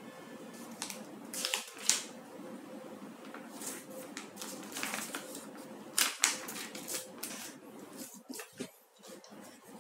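Hitachi D10VST drill being handled, with irregular clicks and knocks of its plastic housing and switches; the motor is not running.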